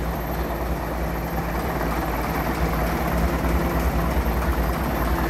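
Leyland six-cylinder diesel bus engines idling, a steady, even low rumble.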